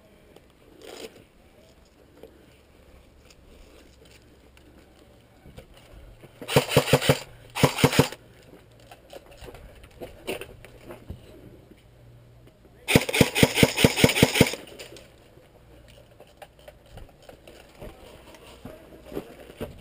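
Airsoft gun firing three bursts of rapid, evenly spaced shots: two short bursts close together, then a longer burst of about a second and a half some five seconds later.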